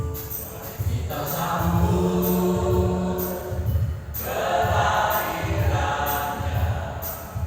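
A church choir of elderly singers singing a hymn together, with a steady low beat from the accompaniment underneath. The voices pause briefly about halfway through and come back in.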